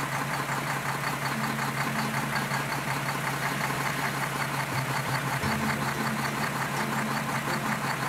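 Truck engine running steadily, with a rapid, even beat.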